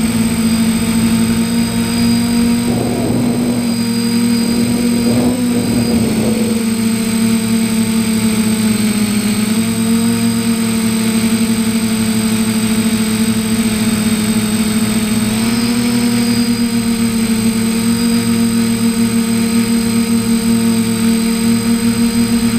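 Drone's electric motors and propellers whirring: a steady, loud whine made of several tones. It wavers a little a few seconds in, drops slightly in pitch about nine seconds in, and rises again about fifteen seconds in as the motor speed changes.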